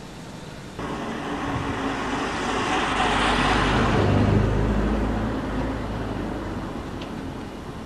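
A vehicle passing close by: its noise jumps up suddenly about a second in, swells with a low engine hum to a peak around the middle, then fades away.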